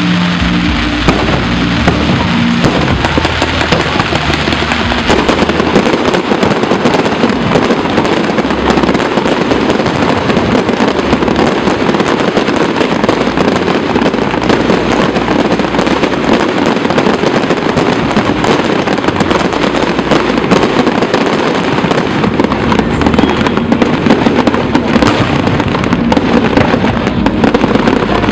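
Fireworks display going off without a break: a dense, continuous run of bangs and crackling.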